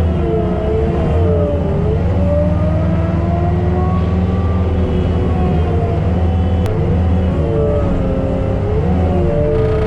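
Takeuchi TL12R2 tracked skid steer running at working speed with its FAE forestry mulcher head: a steady low diesel drone under a higher whine that keeps rising and falling in pitch as the load changes.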